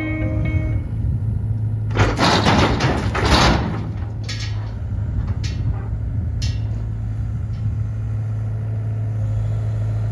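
A heavy engine idling with a steady low hum. About two seconds in comes a loud, noisy rush lasting about a second and a half, then a few sharp knocks.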